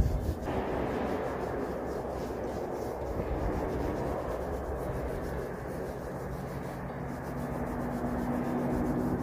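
Walnut oil being rubbed into a hand-carved hawthorn walking stick: a steady rubbing.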